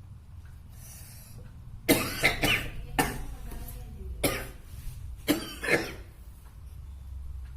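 A man coughing forcefully several times in short bouts, starting about two seconds in. These are deliberate coughs of an effective-cough exercise meant to bring up sputum.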